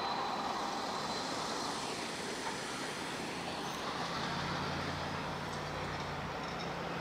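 Road vehicles driving over a railroad grade crossing, a steady traffic noise. A low engine hum comes in about four seconds in and holds steady.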